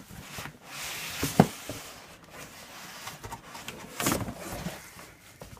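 Cardboard packing insert scraping and rustling as it slides up out of a cardboard box. There is a sharp knock about a second and a half in and another thump at about four seconds.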